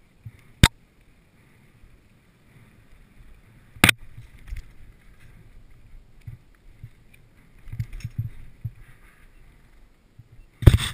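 Mountain bike rolling down a dirt singletrack: a low, uneven rumble of tyres and frame over the trail, broken by two sharp knocks, one about half a second in and one about four seconds in, and a loud clatter of hits at the very end.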